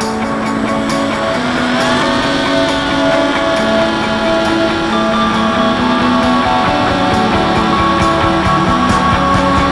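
Background rock music with held notes and a steady beat.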